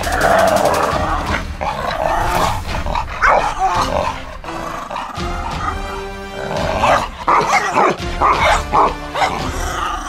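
Dogs barking in play during a rope tug-of-war, with loud bursts about seven to nine seconds in, over background music.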